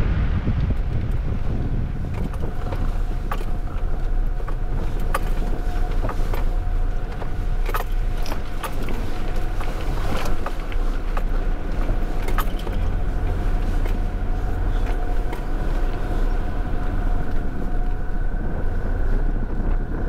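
Four-wheel drive driving on sand, heard from outside on the bonnet: steady engine and tyre noise under a heavy low wind rumble on the microphone, with scattered sharp clicks and rattles.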